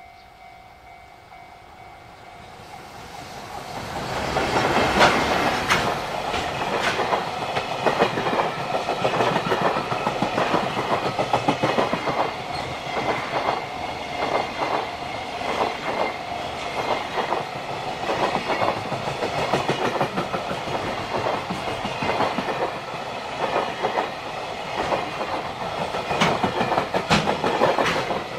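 JR Freight container train passing close by: it grows loud over the first few seconds as the electric locomotive comes up, then a long run of Koki container flat wagons clatters past, wheels clacking over the rail joints.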